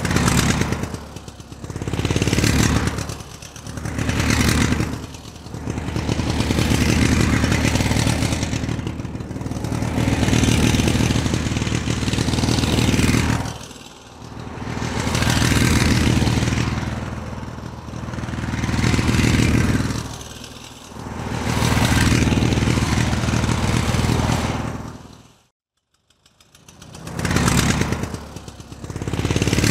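Motorcycle engine starting and being revved over and over, each swell of throttle falling back toward idle. About 25 seconds in it cuts out, then it is started again and revved a few more times.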